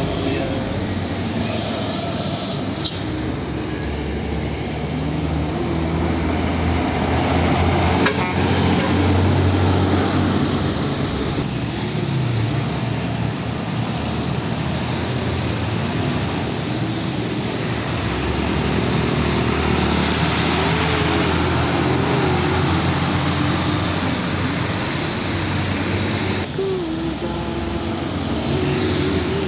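Heavy diesel trucks, Hino 500 trucks among them, driving past one after another in traffic: steady engine drone with tyre hiss on wet asphalt.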